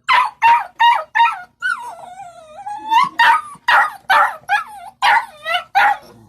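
A dog whining and yelping: a series of short, high-pitched whimpers, with one longer wavering whine about one and a half seconds in.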